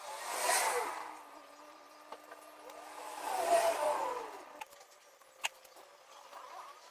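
Two vehicles passing by one after the other, the first about half a second in and the second around three and a half seconds in, each swelling up and fading away. A sharp click follows near the end.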